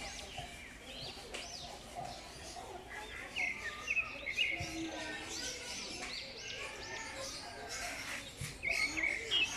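A group of African lovebirds chattering: many short, overlapping high chirps, loudest about midway and again near the end.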